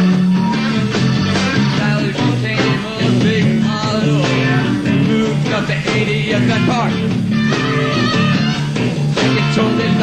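Live rock band playing loud and without a break, with organ and electric guitar over bass and drums.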